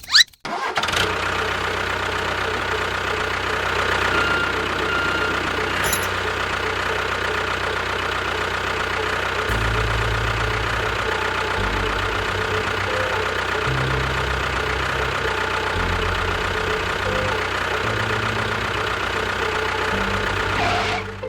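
A vehicle engine running steadily, like a tractor or bulldozer idling. It starts with a sharp click and cuts off suddenly near the end.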